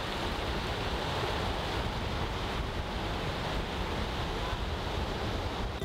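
Small waves washing onto a sandy beach in a steady hiss, with wind rumbling on the microphone.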